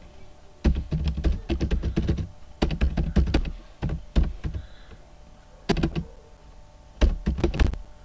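Typing on a computer keyboard: quick runs of keystrokes separated by short pauses, with a longer run in the first half and shorter bursts later.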